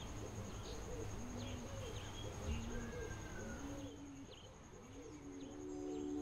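Bird ambience of doves cooing over and over, with a few small birds chirping faintly above them.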